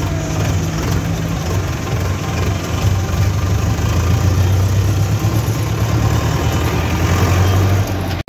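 Diesel tractor engine running steadily while driving, heard close up from the tractor itself, a low even hum over road noise. The sound cuts out briefly at the very end.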